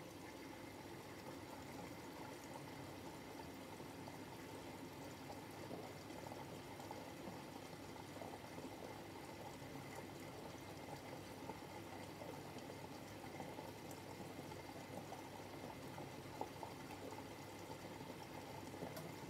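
Miele Novotronic W715 front-loading washing machine rinsing a double duvet: a steady sound of running, pouring water in the drum.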